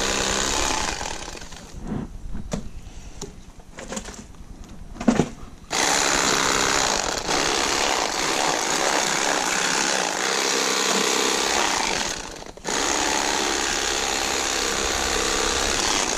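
Electric fillet knife buzzing as it cuts fillets from crappie. It runs for about a second and a half, stops for about four seconds with a few small knocks, then runs again, with a brief stop near the end.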